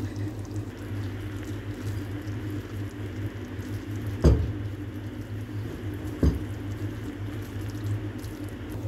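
Thick batter with shredded chicken simmering in a kadhai and being stirred with a spatula: a wet bubbling and squishing over a steady low hum, with two sharp knocks about four seconds in and again two seconds later.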